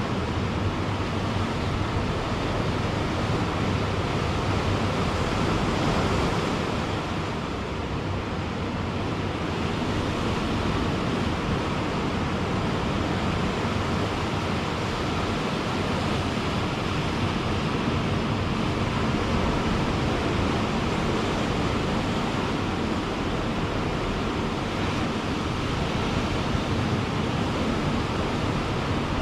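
Ocean surf breaking and washing on a beach, a steady unbroken rush of waves that dips slightly about seven seconds in.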